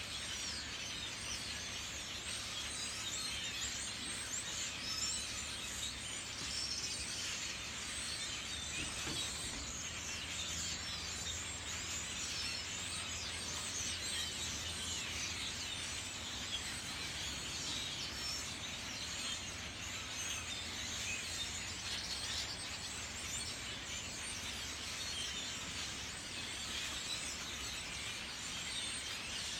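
A large flock of birds gathering to fly south, many calls overlapping into a steady chattering din.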